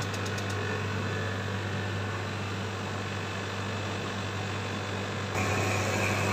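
Industrial laundry tumble dryer running: a steady electric-motor hum with the drum and V-belt pulley drive turning, on a machine whose drum will not reverse direction. About five seconds in the sound grows louder and brighter, nearer the motor and belt drive.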